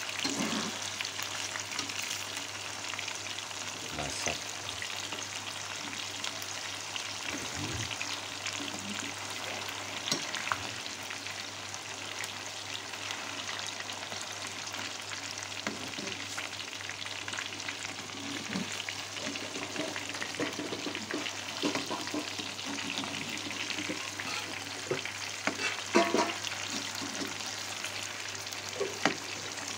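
Tofu bacem deep-frying in hot oil in a pan: a steady sizzle, with a few sharp clicks of a slotted metal spatula against the pan as the pieces are turned.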